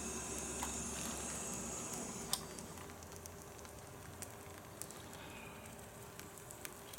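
Faint sizzling of salami and melted cheese cooking in a small pan on a gas camp stove, with a few light clicks and taps. The hiss dies down about two and a half seconds in.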